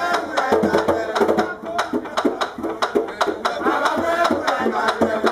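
Bèlè drum played by hand in a quick, driving rhythm with sharp clicking strokes, under men's voices singing a danmyé song.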